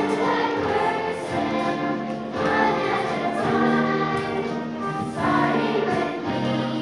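Elementary school children's choir singing a song, the voices holding long notes that change pitch every second or so.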